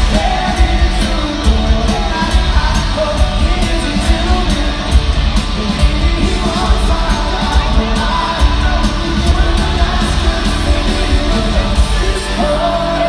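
Live rock music at a concert, recorded on a phone: a singer over electric guitar and drums, loud and steady.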